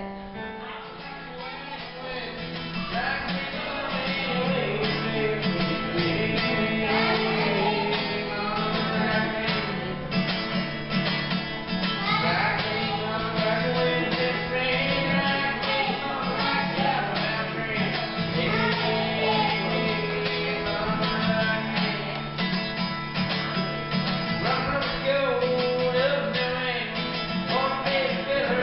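Two acoustic guitars played together, a steady strummed rhythm under a picked melody, in a country style.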